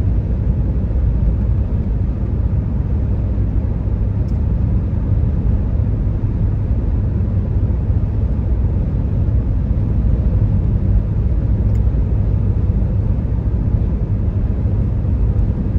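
Steady low rumble of a car cruising at highway speed, heard from inside the cabin: road, wind and engine noise with no change in pace.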